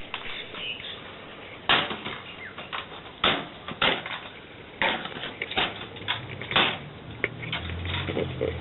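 Sharp hard knocks, about six spread over five seconds, as a compact digital camera is dropped on and smashed. A low steady hum comes in near the end.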